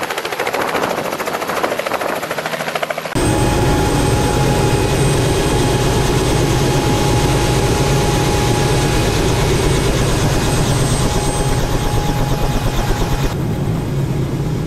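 Robinson R66 turbine helicopter: rhythmic rotor-blade chop as it settles onto the helipad, then about three seconds in much louder and closer, running on the ground with a steady high turbine whine over a deep rotor rumble. Near the end the highest whine drops away and the rumble carries on.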